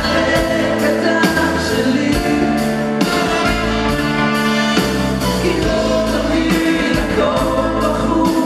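Two male singers singing a duet live into handheld microphones, with band accompaniment carrying a steady bass line, heard through a concert sound system.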